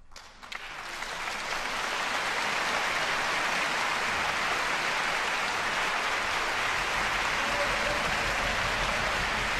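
Concert-hall audience breaking into applause as the orchestra's last chord dies away. The clapping builds within about a second to steady, dense applause.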